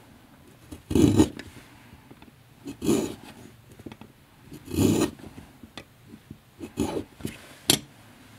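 Lee Valley Little Shaver pencil sharpener's blade scraping wood off a pencil in a series of strokes about two seconds apart, the last two shorter. The blade drags and tears at the wood with a lot of resistance, a sign that it needs more sharpening.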